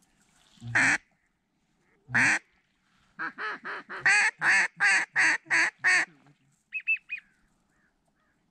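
Mallard hen duck call blown by a hunter: two single loud quacks, then a fast run of about a dozen quacks to draw in passing ducks. Near the end comes a short three-note whistle.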